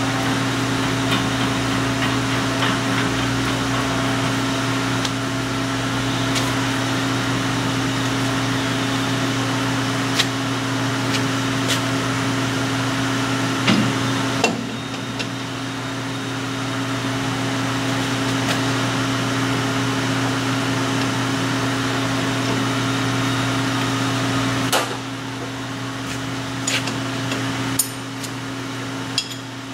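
Steady electric machinery hum that steps down in level twice, with scattered sharp metallic clinks and knocks from a wrench and parts being handled at a circular saw blade and arbor during a blade change, the knocks coming more often near the end.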